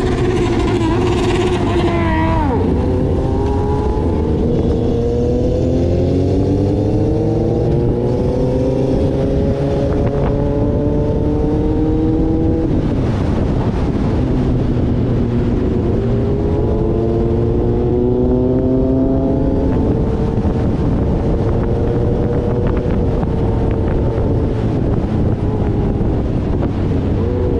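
Motorcycle engine heard from on board the moving bike, accelerating up through the gears. Its pitch climbs steadily and drops sharply at a shift about two seconds in and again around halfway, then dips once more and holds fairly even near the end, over a constant low rumble.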